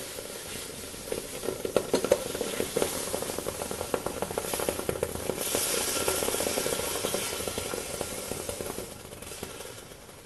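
Hot steel air-compressor-barrel mould holding freshly cast aluminium being quenched in a bucket of water: the water boils against the metal with dense sizzling crackles and a hiss of steam, dying away toward the end as the casting cools.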